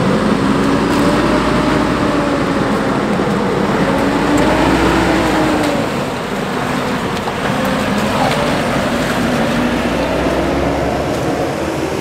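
Nissan Navara 4x4 ute's engine running as it crawls through a shallow rocky creek crossing, its pitch rising and falling with the throttle, with tyres and water splashing.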